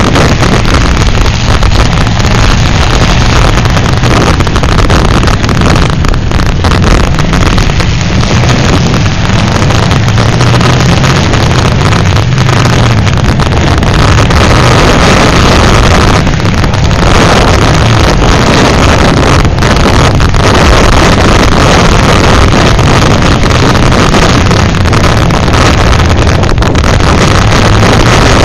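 Demolition derby cars' engines running in the arena, a steady low hum, under heavy wind noise buffeting the microphone.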